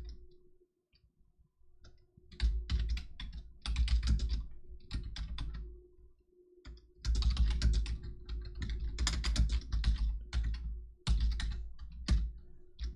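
Typing on a computer keyboard: rapid runs of keystrokes start about two seconds in and break off briefly around six seconds before going on.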